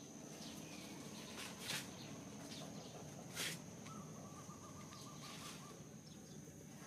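Quiet outdoor ambience with a bird's trilling call about four seconds in, over a steady high-pitched whine, and two brief hissy noises about a second and a half apart earlier on.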